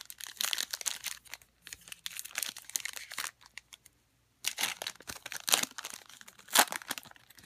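Foil wrapper of a trading-card pack being torn open and crinkled by hand. It comes in two spells of crackling, with a pause of about a second between them and one sharp crack near the end.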